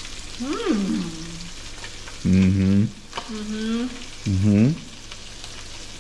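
Mackerel fillets sizzling in butter in a frying pan, a steady hiss. Over it a woman makes four short wordless voice sounds, the loudest about two and a half and four and a half seconds in.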